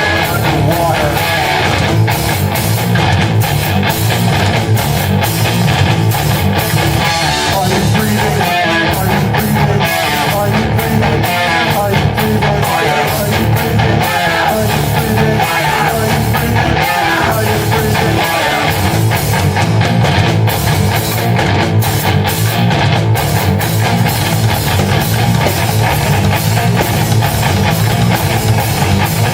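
Live rock band playing an instrumental passage: electric guitar, bass guitar and drum kit, loud and dense without a break.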